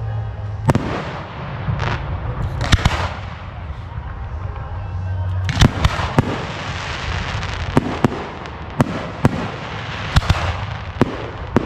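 Aerial fireworks bursting: about a dozen sharp reports at irregular intervals, several followed by a crackling hiss, over a steady low rumble.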